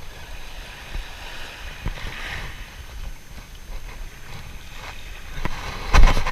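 Wind buffeting the microphone over lapping sea water while a spinning rod works a lure. About six seconds in, a short, loud rush and clatter comes as the rod is swung up overhead for a cast.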